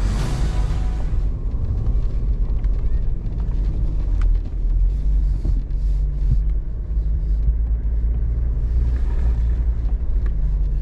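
Toyota 4x4 driving slowly through deep snow, heard from inside the cab: the engine runs as a steady low drone under road and tyre noise.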